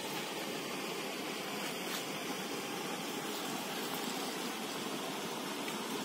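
Steady rush of river water spilling over a small concrete weir.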